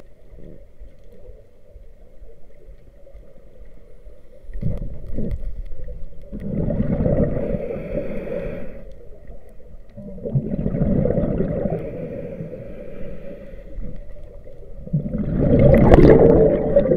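Scuba diver's exhaled breath bubbling out of the regulator, heard underwater, in three long gurgling rumbles a few seconds apart with quieter inhales between them. The last rumble is the loudest.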